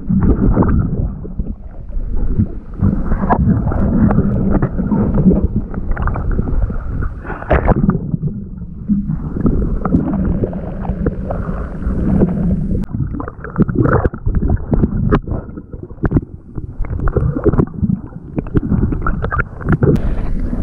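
Muffled underwater water noise from a camera held below the surface: water churning and sloshing around the submerged camera housing, with scattered sharp knocks and clicks.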